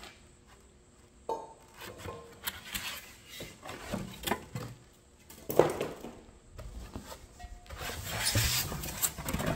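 Styrofoam sheets and cardboard packing being pulled out of a cardboard box: rubbing, scraping and scattered knocks, with one sharper knock about halfway through. Near the end a longer rubbing scrape as the glazed earthenware jar is worked up out of its packing.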